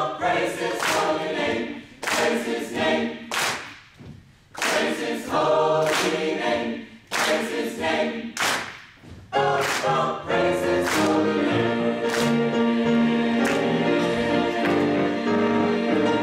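Mixed chamber choir singing a gospel song with hand claps about once a second; about nine seconds in the claps fall away and the choir holds full sustained chords.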